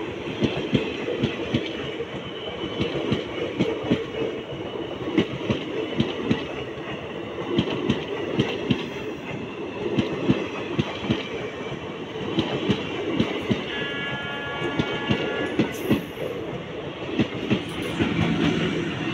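Passenger train coaches passing close at speed: a continuous rumble with rapid clickety-clack of the wheels over the rail joints. About two-thirds of the way through, a high steady tone sounds for about two seconds.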